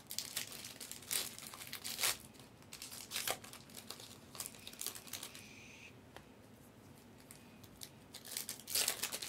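Foil trading-card pack being torn open and crinkled by hand: scattered sharp crackles of the wrapper, with a louder burst of crinkling near the end.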